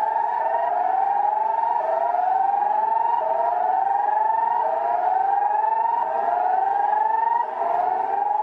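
Emergency alert siren played back from a video: an electronic tone that sweeps upward again and again, each rise lasting under a second.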